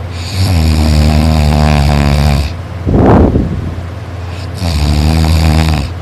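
A person snoring very loudly: two long pitched snores of about two seconds each, with a short rush of breath about three seconds in between them.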